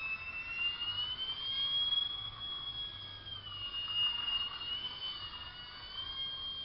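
Scratch-built 3D RC biplane's motor and propeller whining, its high pitch swinging with the throttle: dropping a little about three and a half seconds in and climbing again near the end.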